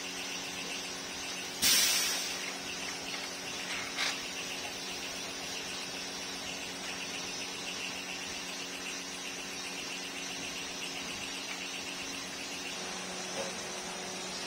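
Steady background hiss with a low hum, broken by a sharp, brief noise about two seconds in that fades quickly, and a smaller one about two seconds later.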